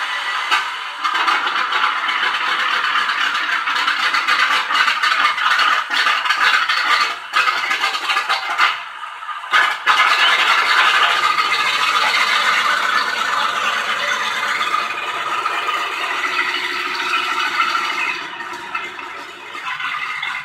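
Recorded start-up of a Sherman Firefly's Chrysler A57 Multibank 30-cylinder engine, played back by an R/C tank's sound unit through a small 3-watt speaker. It sounds thin, with no bass, as a continuous mechanical rattle that dips briefly about nine seconds in and then runs on steadily.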